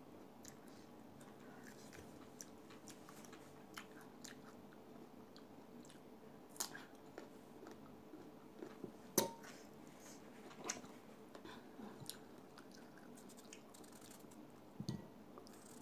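A person chewing and biting pieces of mango close to the microphone: faint scattered mouth clicks and smacks, a few sharper ones in the middle. Near the end there is a short scrape of a knife cutting into mango.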